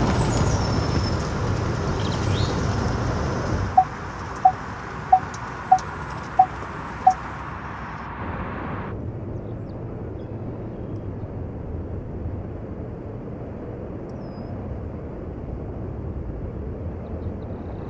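Outdoor vehicle noise, a steady rush that is louder for the first few seconds and eases off. About four seconds in, six short, evenly spaced beeps sound, roughly one every two-thirds of a second.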